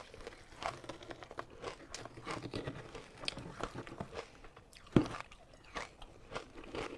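Ice being bitten and chewed close to the microphone: a run of irregular, crisp crunches, with one sharp, much louder crunch about five seconds in.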